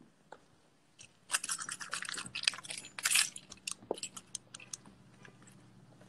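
Dense crackling and rustling with many sharp clicks starting about a second in and lasting about four seconds, then dying down to a faint low hum.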